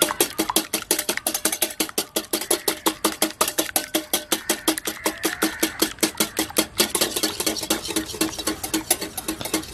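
Wire balloon whisk beating an egg in a glass bowl, its wires clicking against the glass in a fast, steady rhythm of about six strokes a second.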